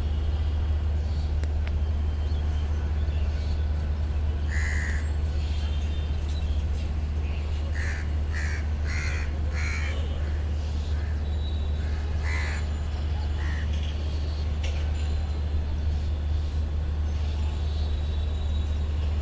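Crows cawing: one caw about five seconds in, a quick run of four a few seconds later and another soon after, over a steady low rumble of city traffic.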